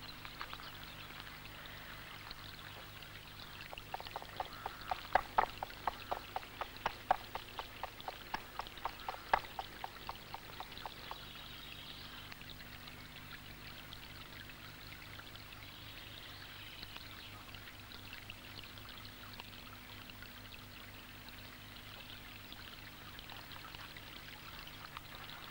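Steady running water of a river. About four seconds in comes a run of quick clicks, about four a second, lasting some seven seconds. A low steady hum lies under it throughout.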